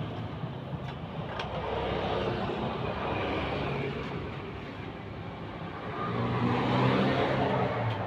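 Motor vehicle engine noise, a steady low hum that fades and then swells again about six seconds in.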